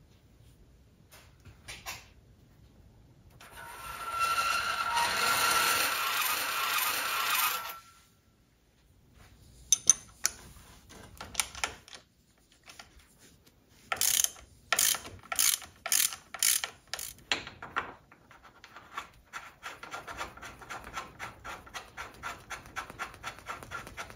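Socket ratchet wrench clicking as it works the fork yoke's pinch bolt. There is a loud run of rapid ratcheting a few seconds in, and later a series of separate, evenly spaced clicks at about two a second.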